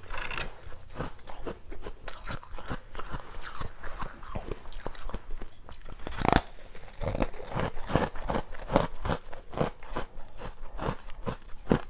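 Biting and crunching of moulded basil-seed ice: a string of sharp cracks as the ice is bitten off and chewed, with one loud bite about six seconds in.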